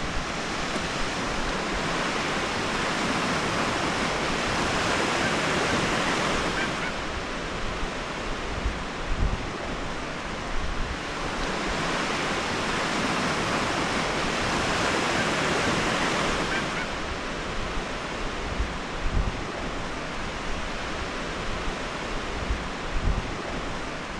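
Small surf washing onto a flat sandy beach, the rush of the waves swelling and easing twice. Wind buffets the microphone in low thumps, mostly in the second half.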